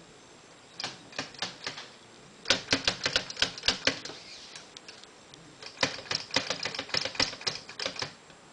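A 1909 Underwood typewriter being typed on: a few separate keystrokes, then two quick runs of typebars clacking against the platen.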